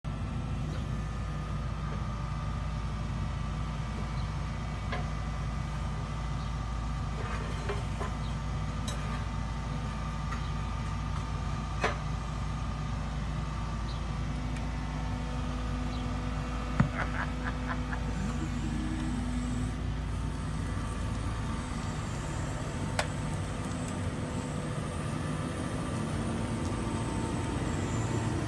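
Diesel engine of a wheeled excavator running steadily as it lifts a car on pallet forks, with a few sharp metallic knocks, the loudest about two-thirds of the way through.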